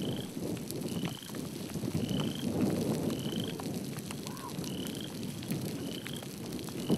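A frog calling a short, slightly rising note about once a second, over a low steady rumble.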